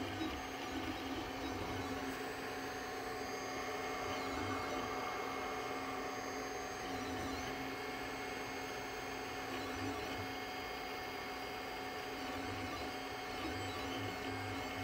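Anycubic 3D printer running: a steady mechanical hum with faint high-pitched whines that shift in pitch every few seconds.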